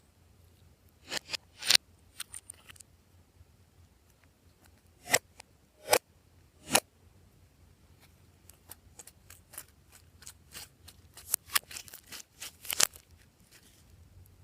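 Glossy slime being worked by hand, giving sharp wet clicks and pops as air pockets burst: a few in quick succession early, three loud single pops near the middle, then a run of smaller quick clicks.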